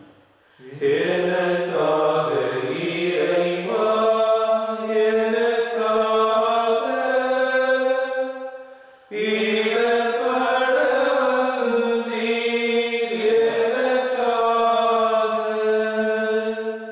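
Slow devotional chant sung in two long phrases of held notes, with a brief break about nine seconds in.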